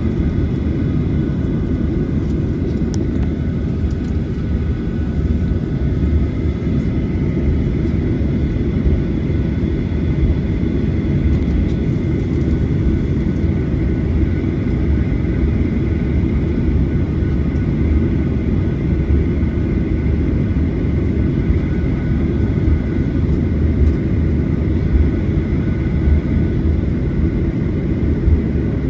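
Cabin noise of a Boeing 737-900ER with its CFM56-7B engines at low ground power while waiting to take off: a steady low rumble with a faint high whine, neither rising nor falling.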